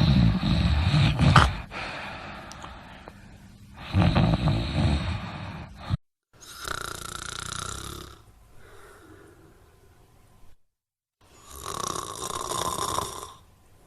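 A person snoring: four snores of about two seconds each, the first two deep and the last two airier and higher. Between them the sound cuts off abruptly to dead silence twice, where clips are joined.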